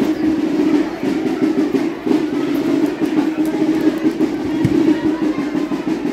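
Live music from a parade band playing continuously.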